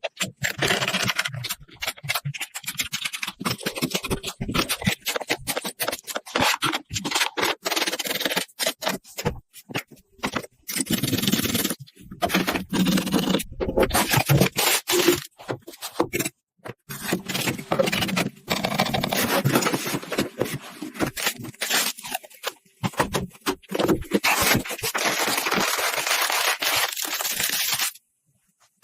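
Scraping, rustling and sharp clicks of computer hardware being handled, coming in irregular stretches with short breaks, then stopping abruptly near the end.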